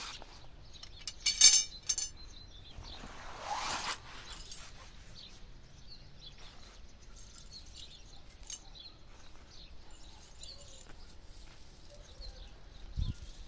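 Steel tripod rods and a chain being unpacked from a canvas carry bag: a quick rattle of metal clinks about a second and a half in, then a sliding rustle, then small scattered clicks and a dull thump near the end.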